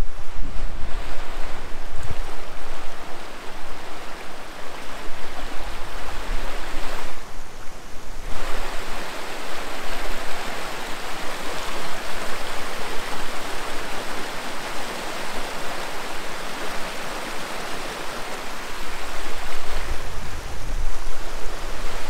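Rushing water of a fast-flowing river, a steady dense hiss that grows louder about eight seconds in. Wind buffets the microphone at the start and again near the end.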